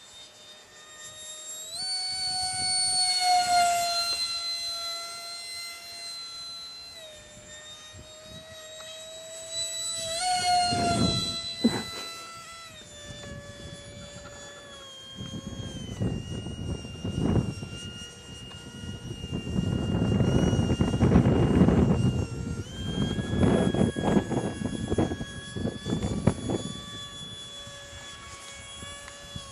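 Model Heinkel He 162 jet in flight: a steady high-pitched jet whine with overtones that shifts slightly in pitch, swelling loud twice in the first half as it passes. A louder rumbling whoosh comes and goes through the second half.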